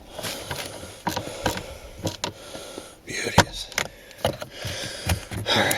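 Scattered small clicks and scrapes of a hidden fastener being worked into its hole inside a car dash, with one sharp click about three and a half seconds in as it goes in.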